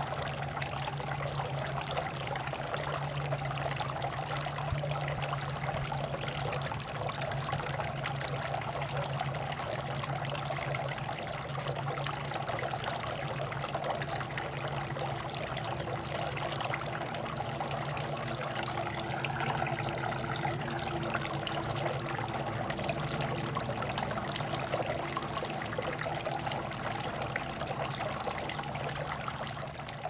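Tiered outdoor floor fountain running: water trickling and pouring steadily from bowl to bowl, with a steady low hum underneath.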